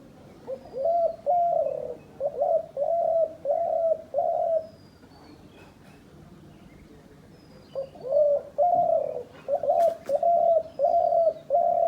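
Dove cooing: two series of short, repeated low coos, each about four seconds long, with a pause of about three seconds between them. Faint chirps from small birds sound in the background.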